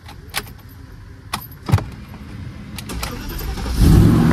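Keys jangle and click at the ignition, then the BMW X5's V8 engine comes up and revs, building from about three seconds in and loud near the end.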